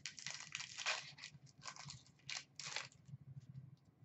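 Trading cards being handled and slid through the hands: a run of short, faint papery rustles and flicks over the first three seconds, then a few light ticks.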